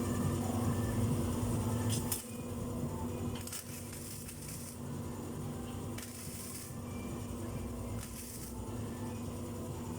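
Welding machine humming steadily while four short hissing bursts of arc welding, like tack or stitch welds on 2.5 mm steel sheet, come at roughly even intervals.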